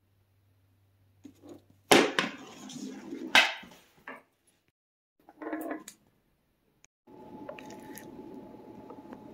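Two loud sharp knocks about two and three and a half seconds in, with a few smaller knocks after. About seven seconds in, a glass marble starts a steady rumble as it rolls across old wooden floorboards.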